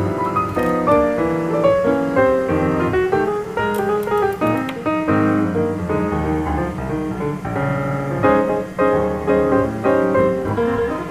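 Background music led by piano, with a melody of distinct notes.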